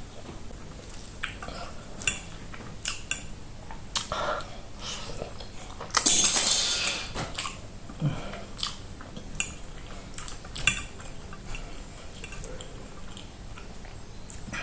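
Close-up eating sounds: chewing and biting, with short clicks of cutlery against a plate. A louder noisy burst lasting about a second comes about halfway through.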